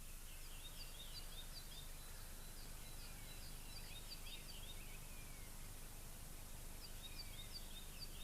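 Faint birdsong: quick runs of short, falling chirps in two bouts with a pause in between, over a steady low background noise.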